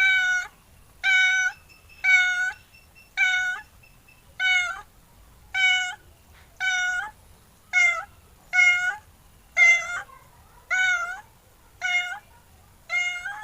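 A cat meowing over and over, short meows about one a second.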